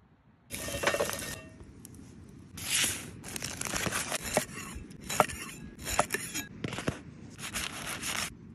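Aluminium foil crinkling and tearing as a foil-wrapped parcel is opened by hand, in a string of rustling bursts with a few sharp clicks. It starts about half a second in and stops just before the end.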